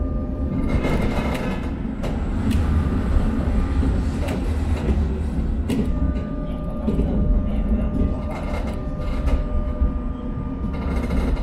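Tram running along its track, heard from on board: a steady low rumble with a faint steady whine and a few sharp clicks.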